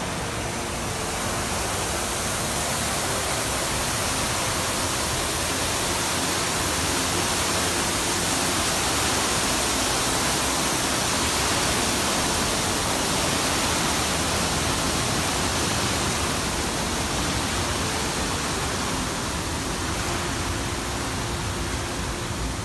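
Fountain water splashing into its basin: a steady, even rushing hiss.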